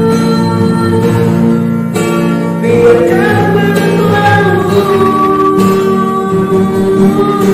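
Acoustic guitar played with a voice singing along in long held notes.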